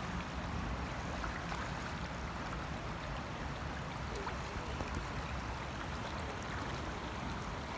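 Shallow stream flowing steadily over a stony bed.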